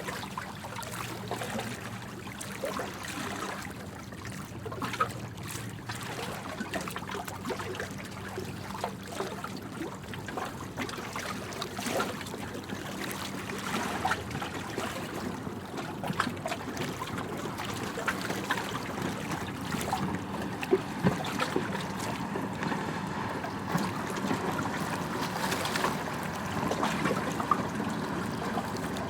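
Small waves lapping and water trickling, a steady wash broken by many small irregular splashes.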